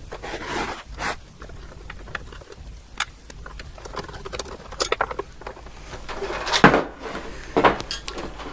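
Screwdriver clicks and scrapes as screws are worked out of the metal chassis and front surround of a PDP-8/M minicomputer, with scattered handling knocks. The loudest knock comes about two-thirds of the way through, as the surround is handled.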